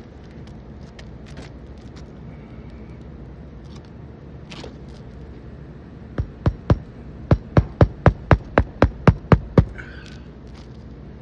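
Hammer driving roofing nails to fasten a replacement asphalt shingle: about a dozen sharp blows, about four a second, starting about six seconds in.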